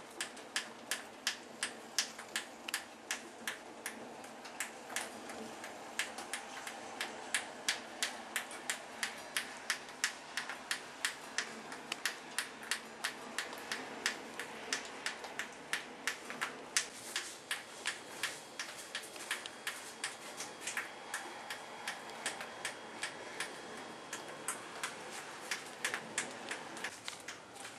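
A steady series of sharp ticks, about two or three a second, some louder than others, over a faint background hiss.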